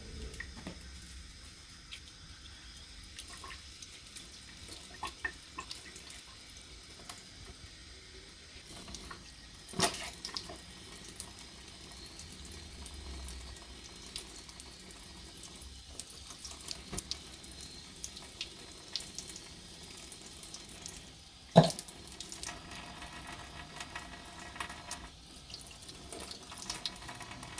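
Tap water running and splashing as raw chicken gizzards, hearts and livers are rinsed by hand, with small clicks and knocks throughout. A sharp knock comes about ten seconds in, and a louder one a little past twenty seconds.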